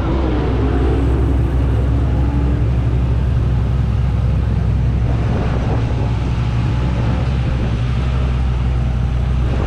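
A steady low engine rumble, like an engine idling, holding level throughout.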